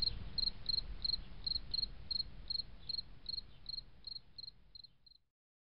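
A cricket chirping in a steady rhythm, about three chirps a second, over a low rumble. It fades out and stops about five seconds in.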